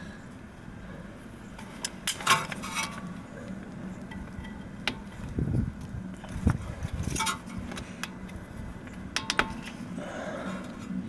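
Scattered light metallic clinks and clicks, about half a dozen, as parts and tools are handled at a VW Golf Mk5's front brake caliper.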